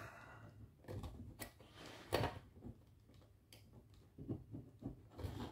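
Faint, irregular clicks and scrapes of a small circuit board's header pins being rocked and pulled out of a solderless breadboard's spring contacts, the strongest click about two seconds in.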